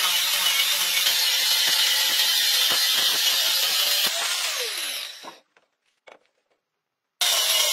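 Angle grinder with a cut-off disc cutting through a rusty steel wrench, a loud steady grind. About four seconds in the pitch falls as the grinder winds down, then near silence with one faint click, and the grinding starts again near the end.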